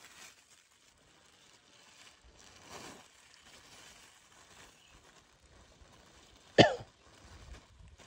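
Faint rustling of a plastic-bag hand net being worked over the ground, then a single short, sharp cough near the end.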